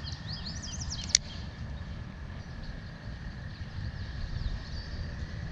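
Small birds chirping in quick rising and falling notes for the first second or so, over a steady low rumble. One sharp click a little over a second in is the loudest sound.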